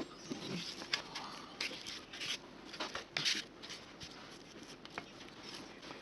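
Irregular rustling and light clicks of things being handled, with a few louder rustles in the middle.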